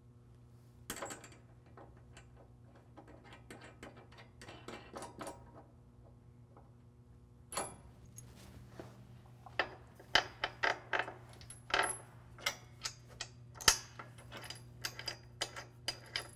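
Small steel hardware clicking and clinking as bolts, washers, spacers and nuts are handled and fitted by hand onto a rock slider's clamp plate. A few scattered clicks come first, then a quick run of sharp ticks and clinks from about halfway on, over a steady low hum.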